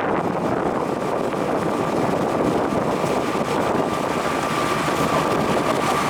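Steady rushing noise of a sightseeing boat under way, with engine, water and wind on the microphone blended together. A faint steady whine comes in after about a second.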